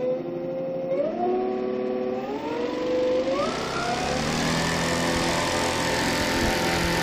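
Electric motor of a large RC Edge 330 driving a 24x12 propeller on an 8S battery in a static thrust test. Its whine steps up in pitch three times as the throttle is advanced, then holds steady near three-quarter throttle with the propeller's rush growing.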